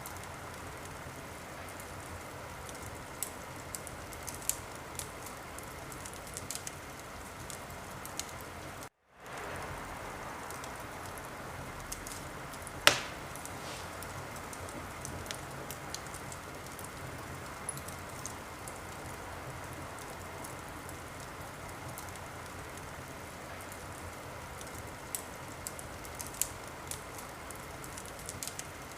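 Wood fire in a fireplace crackling, a steady hiss with scattered small pops and one loud pop about 13 seconds in. The sound cuts out for a moment about nine seconds in.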